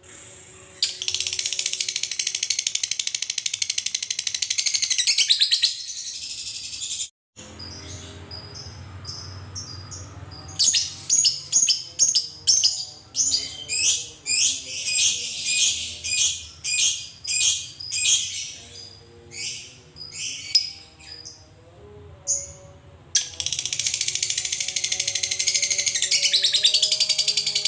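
Fischer's lovebird giving its long rapid chattering trill (ngekek), a shrill rattle held for about five seconds. After a short break it gives a string of separate sharp chirps, about one or two a second, then goes back into the long rattling trill for the last few seconds.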